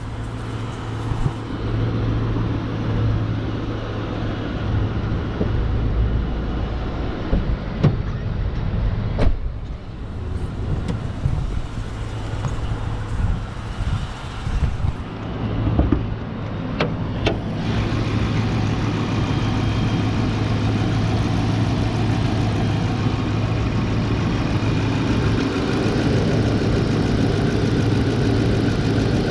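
Police-package Dodge Charger engine idling steadily, with a few sharp clicks and knocks in the middle.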